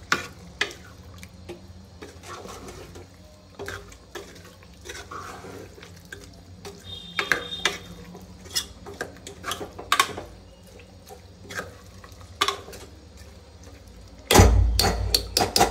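A metal spoon stirring a watery chicken curry in a metal pot, clinking and scraping against the pot at irregular intervals. Near the end comes a louder heavy knock and rattle.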